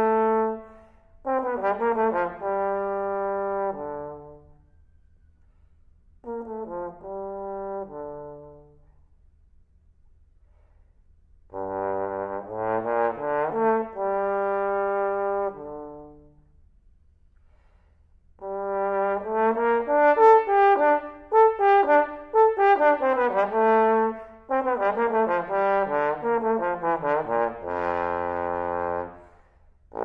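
Trombone playing a slow melody in separate phrases with short silent pauses between them. The last phrase is longer and busier and drops to a low held note near the end.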